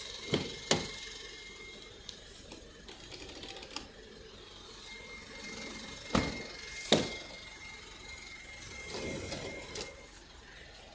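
Two pairs of sharp knocks, each pair about half a second apart, one pair near the start and another about six seconds in, over a faint steady background hum.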